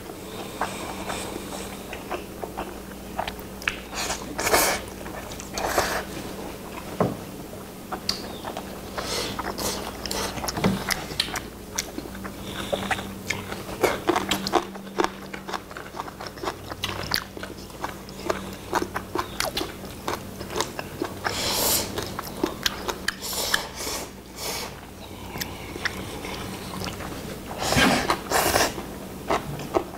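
Two people eating black bean jjapagetti noodles close to the microphone: repeated loud slurps of noodles with chewing and lip-smacking, in clusters several seconds apart.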